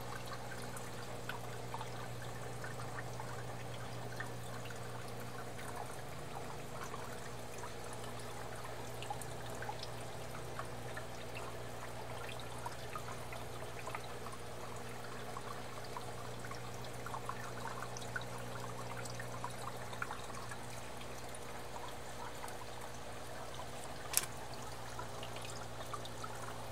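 Aquarium water trickling and splashing steadily, with the constant low hum of the tank's pump underneath. A single sharp click near the end.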